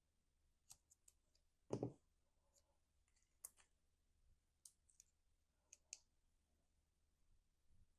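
Faint, scattered clicks and taps of cardstock pieces being handled and set down on a table. One duller, louder knock comes a little under two seconds in.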